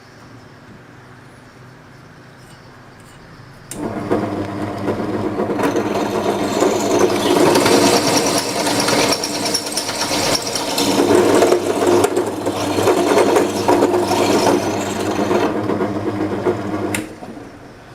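A power tool running steadily on a workpiece: it starts abruptly about four seconds in, keeps a steady motor hum with a hiss up high for about thirteen seconds, and stops suddenly near the end.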